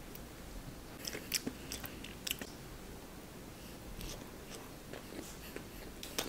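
A person biting and chewing a filled brownie batter donut, with quiet, scattered mouth clicks and smacks.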